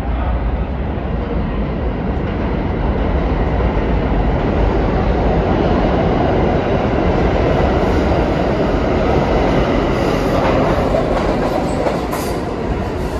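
New York City subway train running on the track: a steady rumble of wheels on rail, loudest through the middle.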